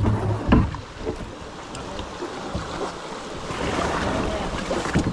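Creek rapids rushing around a kayak, with a few knocks in the first second and the water noise swelling louder near the end.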